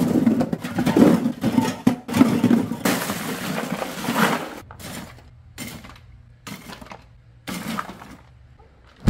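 Soda cans tumbling out of a cardboard box into a plastic cooler, then a bag of crushed ice poured over them in a rush. After that come about five separate clinks as glass bottles are set down on the ice.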